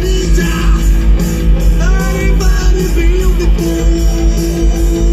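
Rock and roll music with guitar, a steady beat and a singing voice.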